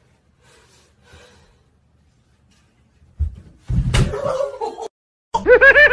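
A person falling in a bathtub: a dull thump about three seconds in, then a loud crash and clatter, followed near the end by a loud high-pitched cry.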